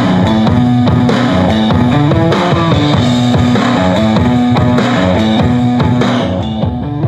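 Guitar-and-drum rock music playing through a Lofree Poison retro Bluetooth speaker, picked up close by a microphone. About six seconds in it turns quieter and duller as the speaker is lifted by its strap.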